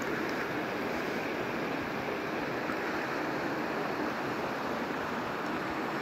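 Shallow mountain river rushing steadily over rocks.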